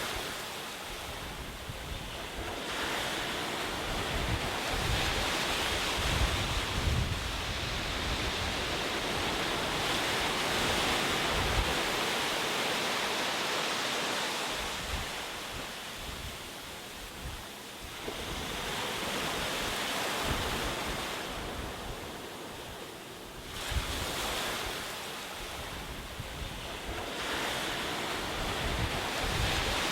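Ocean waves breaking and washing on a shore, the surf swelling and falling back in long surges every several seconds, with a low rumble underneath.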